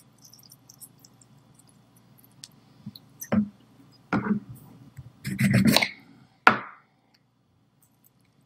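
Kitchen knife cutting a lemon in half on a countertop: a few knocks and scrapes around the middle, the longest and loudest just past halfway, then a sharp knock as the knife is set down.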